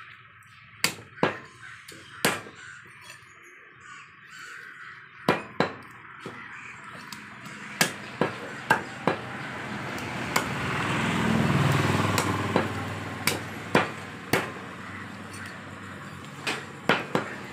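Knife blade striking a wooden chopping block as a country chicken is cut into pieces: sharp knocks at an irregular pace, some in quick pairs. A background noise swells and fades around the middle.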